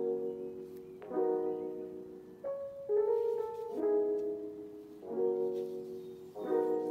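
Soft background piano music: sustained chords struck about every second and a half, each fading before the next.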